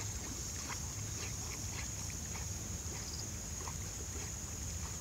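Low wind rumble on the microphone and a steady high-pitched hiss, with faint water sounds from a yellow Labrador retriever paddling across a pond.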